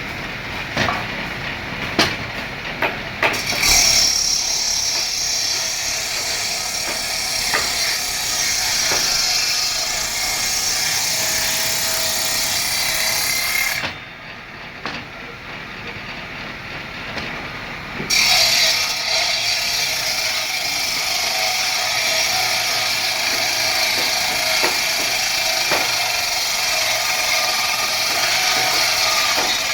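Woodworking power machine running and cutting wood with a steady, loud noise, after a few sharp knocks in the first few seconds. The noise drops away for about four seconds midway, then comes back.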